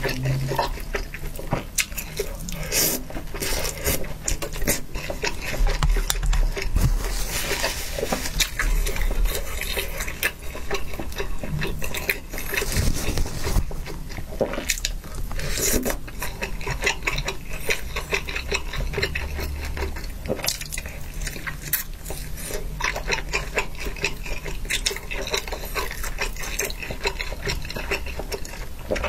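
Close-miked eating sounds: wet chewing of hot pot noodles and skewered meatballs, with many small clicks of chopsticks against the bowl.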